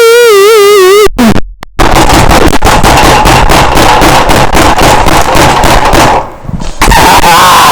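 A man's voice making deliberately weird noises into an overloaded microphone: a warbling, wavering pitched wail breaks off about a second in, then a long harsh distorted blast of noise, then another warbling wail near the end.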